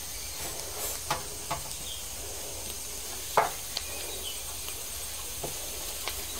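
Fingers rubbing ghee over a metal tray, giving a few light taps and scrapes, the sharpest about three and a half seconds in, over a steady hiss.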